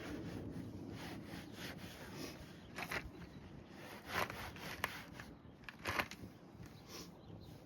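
Rubbing strokes from wiping down a truck's surfaces by hand, with a few short, louder scrapes about three, four and six seconds in.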